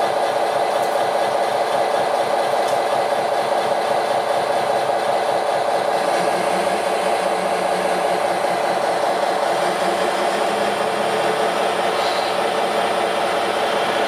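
Scale radio-controlled Komatsu WA600-6 model wheel loader's motors running with a steady whir as it holds the load and turns. A lower hum joins about halfway through.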